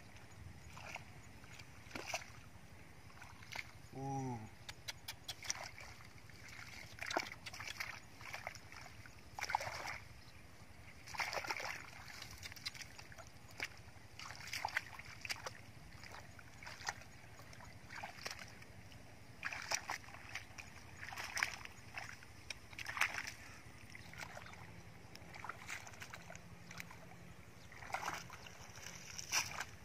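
Hands splashing and squelching in shallow muddy water as a person gropes through the mud, in irregular bursts every second or two. About four seconds in there is one brief pitched vocal sound.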